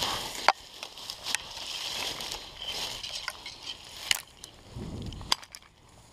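Dry grass stalks and twigs crackling and rustling as someone pushes through brush, with a few sharp clicks.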